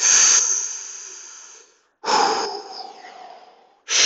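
A man breathing deeply and loudly: two long breaths of about two seconds each, with a third starting near the end, each starting sharply and fading away.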